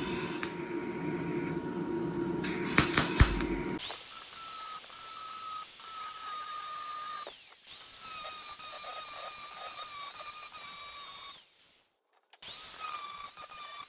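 A small high-speed power tool runs in three bursts, each spinning up to a steady high whine and then winding down. Before the first burst there is a steadier, lower noise with a couple of sharp knocks.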